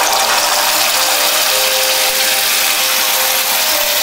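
Wet ground-spice paste of pepper, fennel, ginger and garlic sizzling loudly as it hits hot coconut oil in a kadai: a steady, spattering hiss.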